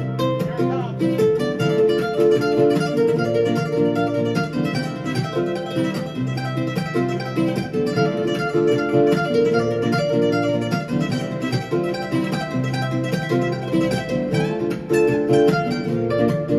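Solo nylon-string guitar played live with the fingers: a continuous run of plucked melody notes over chords.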